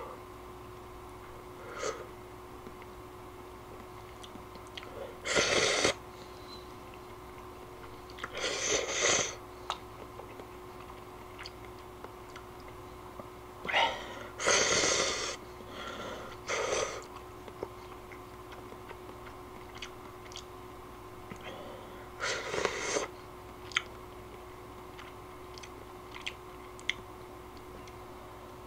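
A person slurping and eating instant ramen noodles, about six slurps of half a second to a second each, with chewing and small clicks of chopsticks and spoon against the pot in between.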